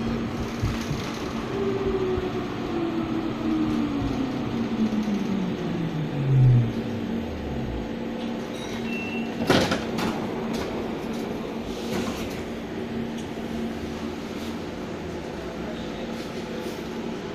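BN T2000 tram braking to a stop: its traction motors' whine falls steadily in pitch over about six seconds, over a steady electrical hum. About nine seconds in there is a short high beep and then a sharp clunk, after which the tram stands humming.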